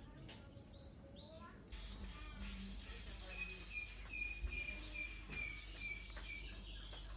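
Nestling prinias giving a run of faint, thin, high chirps at one pitch, a little over two a second, in the middle of the stretch, with a few fainter rising peeps before it: hungry begging calls before a feed.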